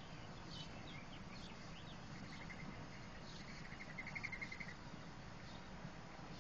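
Faint outdoor background: a rapid, high-pitched pulsed trill from about two to nearly five seconds in, with a few short high chirps before it, over a low steady hum.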